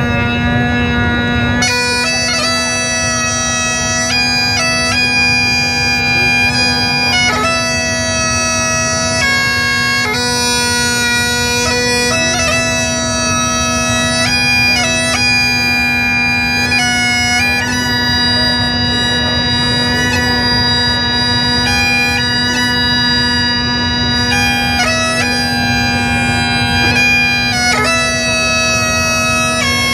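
Great Highland bagpipes of a pipe band playing a tune. The drones sound first and hold one steady note underneath, and the chanter melody comes in about two seconds later.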